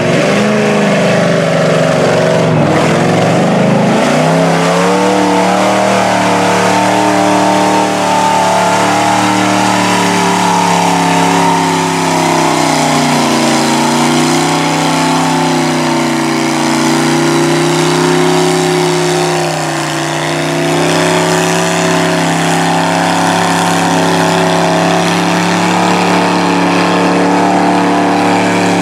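Lifted Chevrolet mud truck's engine running hard as the truck churns through a mud bog pit. Its pitch drops and climbs back about two seconds in, then holds high with slow rises and falls, over the hiss of tires and mud.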